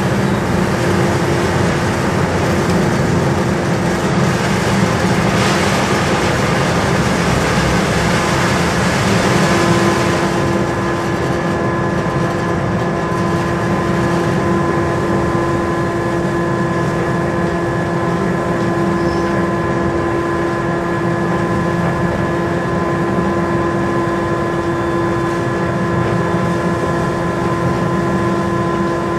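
Twin-tower cement mixing plant running while loading lorries: a steady heavy machine rumble with a rushing hiss over it that drops away about ten seconds in, after which a steady whine stands out more clearly.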